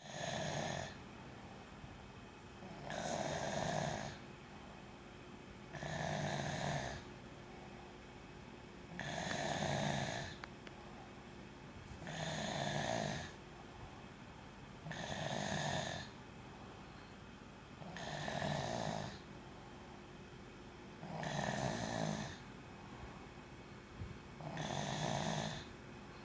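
Snoring in a steady rhythm: nine snores, one about every three seconds, each lasting about a second, with quiet between them.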